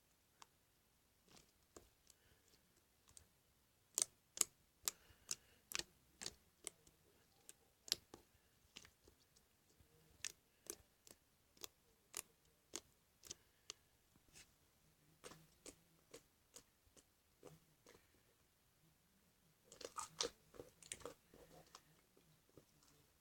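Clicky glossy slime being squeezed and pressed by hand, giving sharp, irregular clicks and pops, about two a second for several seconds, then a quick flurry of clicks near the end.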